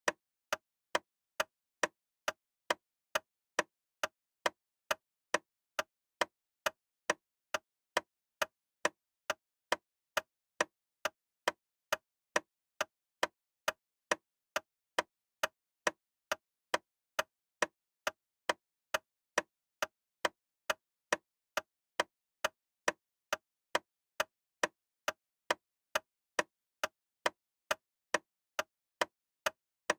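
Loud, sharp ticking, evenly spaced at about two ticks a second.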